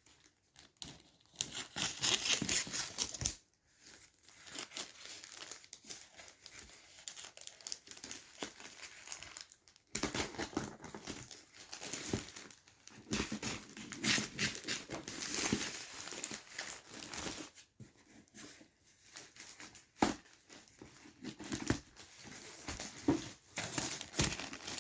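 Parcel wrapping being torn open and crumpled by hand, in irregular stretches of rustling and tearing with short pauses between them.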